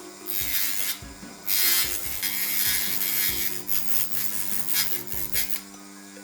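Hand filing of a table knife's plastic handle to trim it to fit: scraping strokes, two longer ones followed by a run of quicker short ones that stop near the end.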